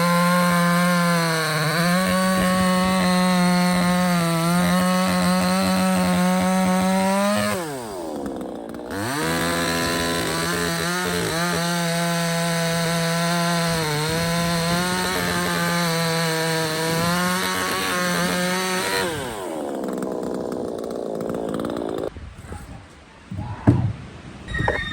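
Proyama 68cc two-stroke gas chainsaw running at high revs, its pitch dipping now and then under load as it cuts wood. About seven seconds in it drops briefly to idle and revs back up, near nineteen seconds it winds down, and a few knocks follow.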